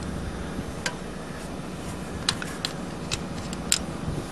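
A wrench loosening the cam chain tensioner lock bolts on a Honda XL250 engine: about five small sharp metal clicks and ticks, the loudest a little before the end.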